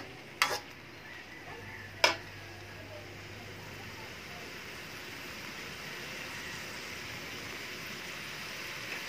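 Mixed vegetables simmering and sizzling in a steel wok, a steady hiss that slowly grows louder as the pan comes to the boil. Two sharp clacks of the metal spatula against the wok in the first two seconds.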